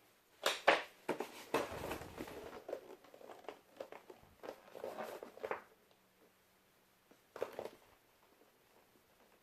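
Handling noise of a boxed product being unpacked: irregular knocks, clicks and rustles for about five seconds, then one more short clatter a couple of seconds later.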